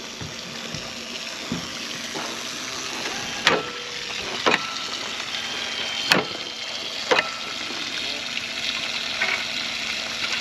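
Steady rushing hiss like running or lapping water, with four sharp clinks about a second apart in the middle.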